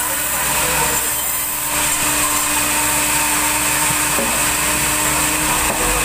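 Large vertical band saw ripping a red-wood log: a steady, loud, hissing cutting noise over a constant machine hum. The noise fills out and grows slightly louder about two seconds in.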